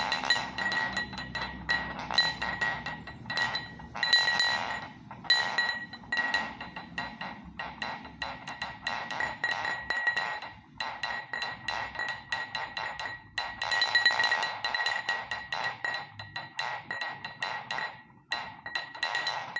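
A weird noise: fast, irregular clinking and ticking over a steady high ringing tone that fades and comes back.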